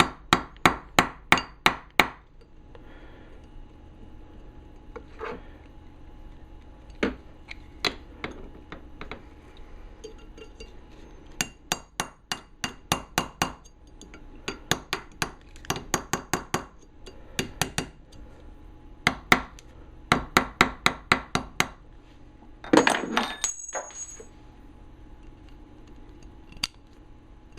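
Small hammer tapping on steel, peening metal over on a Snap-on ratchet head: sharp taps in quick runs of about four a second, with pauses between runs. Near the end there is a short, louder metallic clatter.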